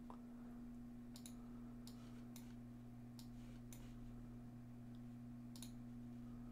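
About six faint, scattered clicks of a computer mouse over a steady low hum.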